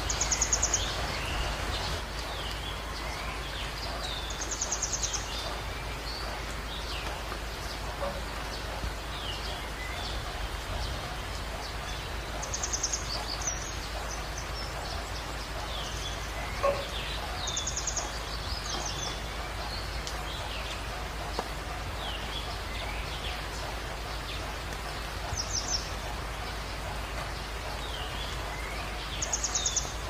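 Steady heavy rain with wild birds singing over it: short downward-swept chirps come throughout, and a rapid high trill repeats every few seconds.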